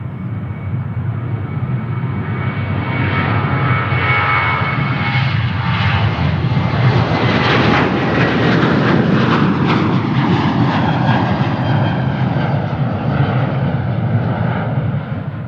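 Jet airliner engines passing close by: a loud rushing roar with a steady high whine that swells over the first few seconds, peaks about halfway through, eases slightly, then cuts off suddenly at the end.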